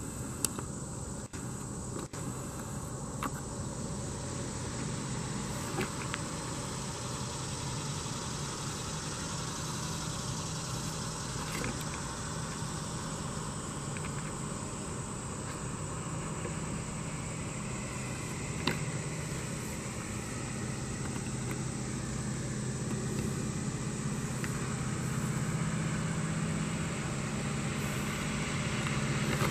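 Diesel locomotive approaching from far off: a low, steady engine drone that grows gradually louder.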